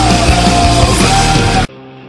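Loud, hard-edged rock music that cuts off suddenly near the end, giving way to much quieter guitar music.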